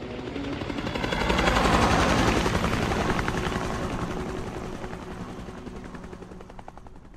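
Helicopter rotors beating in a fast, even rhythm, swelling to loudest about two seconds in and then slowly fading as the helicopters fly off.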